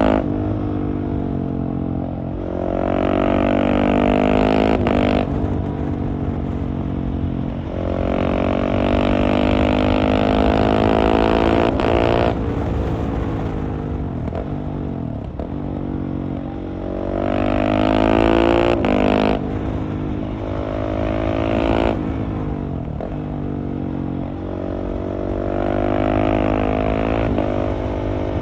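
Husqvarna 701's single-cylinder engine through a LeoVince Nero exhaust, heard onboard while riding. The pitch climbs under throttle for a few seconds at a time, then breaks off sharply or falls back, again and again.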